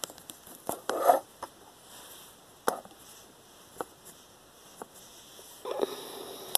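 Handling noise on a tabletop: scattered light taps and clicks, with brief rustles about a second in and again near the end.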